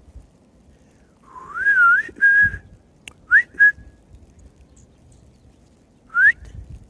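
A person whistling to call a dog: a wavering, rising whistle that settles into a held note, then two short rising whistles, each followed by a brief held note, and one more short rising whistle near the end.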